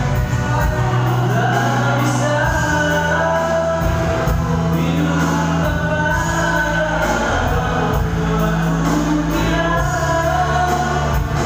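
Music with singing: a song played loud and steady, long held bass notes changing every couple of seconds under the vocal line.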